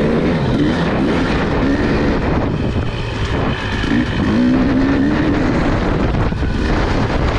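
Husqvarna dirt bike engine, heard from on the bike, revving up and down under the rider's throttle, its pitch rising and falling.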